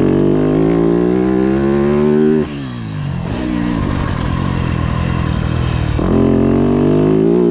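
Yamaha YZ250F's 250 cc four-stroke single-cylinder engine pulling under throttle with a rising pitch for about two and a half seconds. The throttle is then closed and it falls to a lower, quieter note, and it pulls again with rising pitch from about six seconds in.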